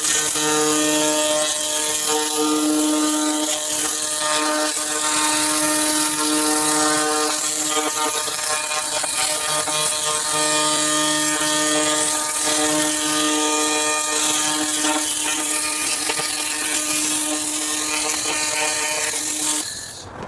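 3000 W handheld laser cleaner stripping rust and scale from welded steel: a steady buzzing hum under a hiss, cutting off just before the end. The heavy sparking comes from oil and grime burning off the metal.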